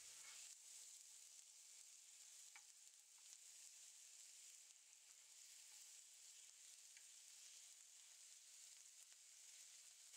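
Faint, steady sizzle of shredded onion frying in hot oil in a frying pan, with a few light clicks of a metal spatula stirring it against the pan.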